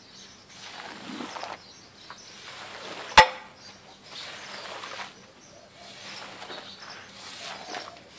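A squeegee pushed in repeated wet, swishing strokes through foamy wash water on a soaked shag carpet, working the soapy water out of the pile. About three seconds in, a single sharp knock.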